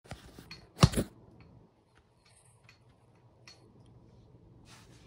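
Two sharp knocks about a second in, close together, then faint scattered clicks and ticks.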